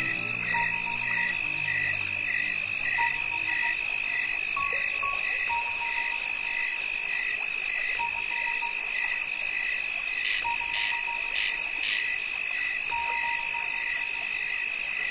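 Night chorus of insects and frogs: a steady high trill with a pulsing call repeating about three times a second, and one or two 1 kHz tones that come and go. Low sustained tones fade out over the first few seconds, and four short, higher chirps come in quick succession about two-thirds of the way through.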